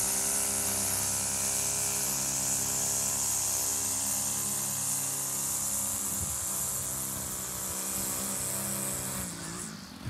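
String trimmer running steadily at working speed, cutting grass along a lawn edge; it fades out near the end.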